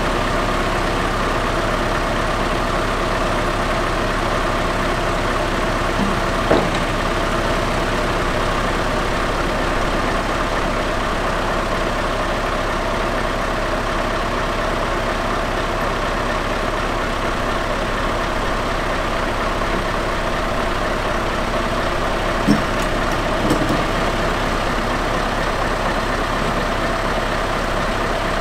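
Scania R650's V8 diesel running steadily while it powers the Copma 1150 knuckleboom loader crane as the boom moves. A few brief knocks, about six seconds in and twice more after twenty-two seconds.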